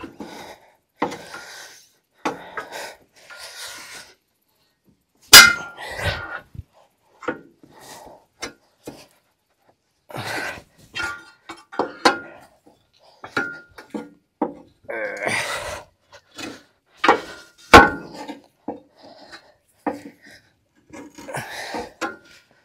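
Irregular knocks, clinks and scrapes of tools and metal parts being handled, with a pause here and there. Two sharp metallic bangs stand out, about five seconds in and again near the eighteen-second mark.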